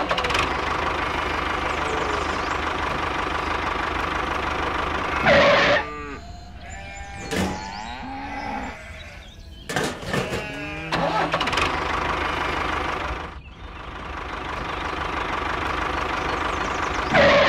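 A small electric motor whirring steadily as a toy tractor's drill bit bores into dirt and rock, stopping and starting a few times. Short pitched cries, like bleats, come in the gaps around the middle.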